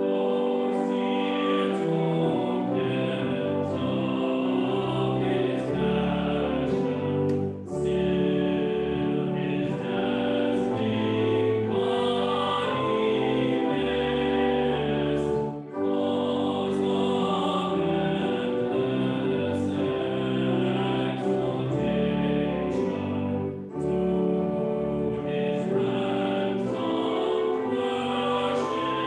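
Voices singing a hymn with pipe organ accompaniment, in even phrases about eight seconds long with a brief break between each.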